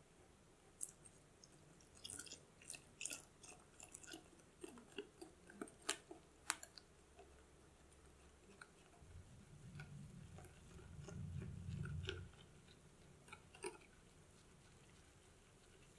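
Whisk stirring an egg-yolk mixture in a glass bowl, with light scattered clicks and taps of the whisk against the glass. About nine seconds in, milk pours in with a soft low gurgle for a few seconds, then the whisking taps go on.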